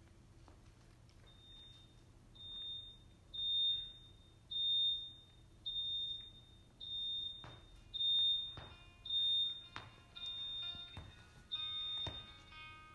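Electronic beep repeating about once a second, a hospital heart-monitor sound cue for a patient lying unresponsive. Soft music comes in under it during the second half, with a few knocks.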